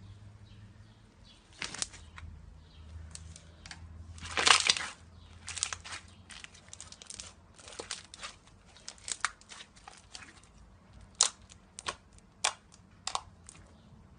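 Slime being pressed and squished, giving irregular crackling and popping clicks, with one louder, longer squelch about four and a half seconds in.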